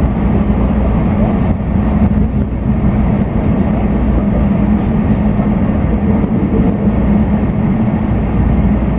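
Running noise of an N700 series Shinkansen train heard from inside the passenger cabin: a steady low rumble with an even hum.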